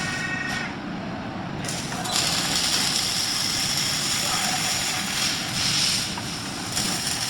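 A short high tone fades in the first half-second. About two seconds in, a robotic MIG welding arc strikes and runs with a steady crackling hiss.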